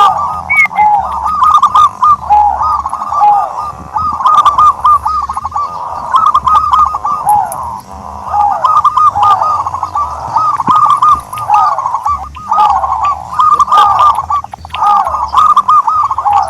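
Turtle dove cooing continuously: an unbroken run of short rising-and-falling notes repeated over and over, with a faint low hum underneath.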